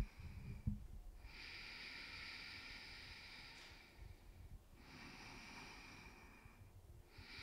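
Slow, deep breaths taken close to a microphone: long airy rushes of two to three seconds each, one starting about a second in, another just before the middle, and a third near the end.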